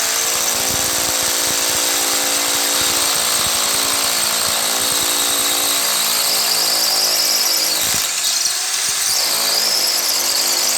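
Bosch electric drill running steadily, its motor making a high whine that grows stronger about six seconds in and briefly falters near eight seconds.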